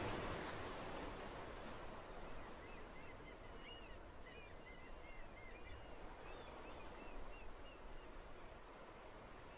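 Faint, steady wash of noise like surf, with a flurry of short, high bird chirps through the middle.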